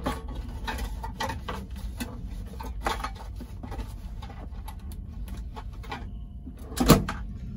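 Items being rummaged through and handled out of sight: a run of small clicks and rustles, then a single loud knock near the end, over a steady low hum.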